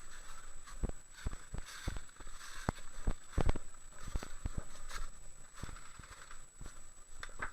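Irregular soft knocks and a crackling rustle of someone moving through dry brush, about one or two knocks a second, unevenly spaced.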